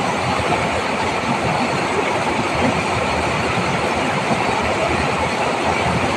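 Water rushing over a rocky ledge in a stream in spate: a loud, steady rush of white water.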